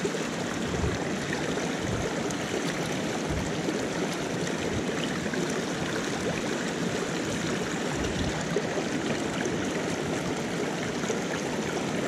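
Shallow, rocky stream running fast over stones close by: a steady noise of flowing and splashing water.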